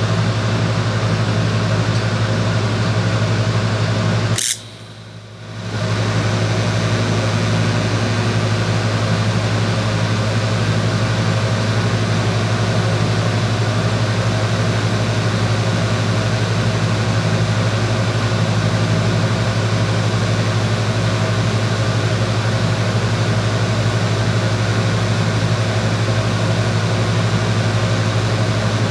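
Arc welding in progress: a steady low electrical hum with an even hiss over it. It cuts out for about a second after a click, about four and a half seconds in, then resumes unchanged.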